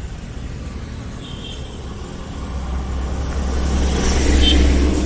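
Road traffic: a motorcycle and a bus pass close by, their engine rumble building to a peak about four seconds in.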